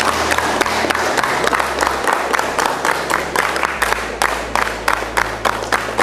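A small group of people clapping their hands, at first a dense scattered patter, then from about four seconds in falling together into a quick, even beat of roughly three claps a second.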